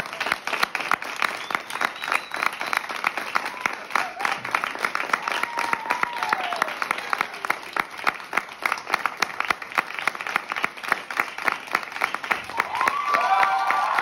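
Many people clapping together in sustained applause, a dense, even patter of claps. A few voices rise over it near the end.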